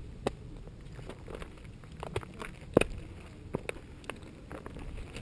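Footsteps over rocky ground and loose stones: irregular knocks and scuffs, the loudest a little before the middle, over a low rumble of wind on the microphone.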